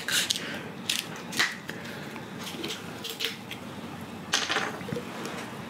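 Scattered light clicks and rustles of things being handled at a dining table: a plastic soda bottle and chopsticks being picked up and moved, with a short rustling scrape about four seconds in.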